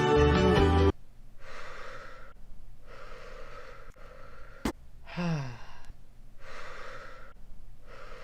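Music stops abruptly about a second in. A person then breathes heavily in and out close to the microphone, about five loud breaths, with a sharp click near the middle.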